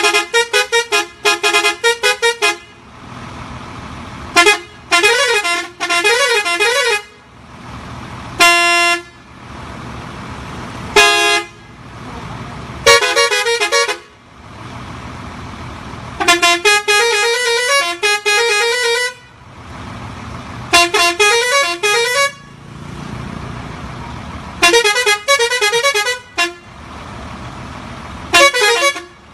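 Ashok Leyland bus's musical horn playing a run of about nine loud bursts, most of them quick melodic phrases of notes stepping up and down, two of them a single short held chord.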